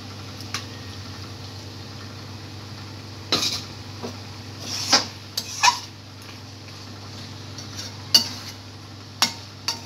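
Spatula scraping and clinking against an aluminium kadai while a thick cabbage curry is stirred with a little added water: about eight sharp clinks and scrapes, loudest around the middle and again near the end. A steady low hum runs underneath.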